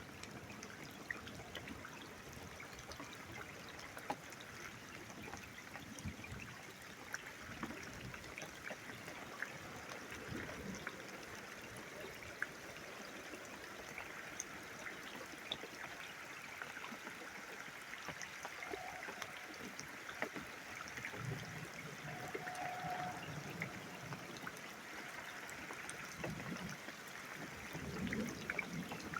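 Rain falling steadily, with water trickling and many scattered drops ticking close by. A few faint low rumbles come in after the middle and again near the end.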